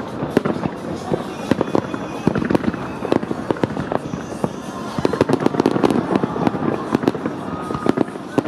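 Aerial fireworks bursting in a rapid barrage: many sharp bangs in quick succession over continuous crackling.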